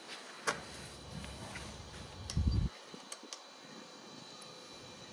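A few scattered sharp clicks and a brief low thump from hand tools being worked on the bolts of an e-bike's disc brake caliper as they are tightened.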